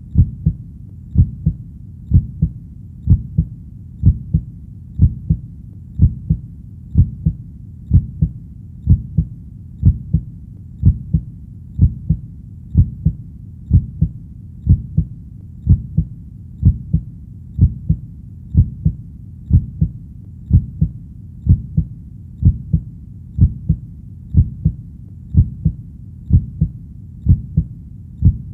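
Heartbeat: low, paired lub-dub thuds repeating steadily at a little under one beat a second.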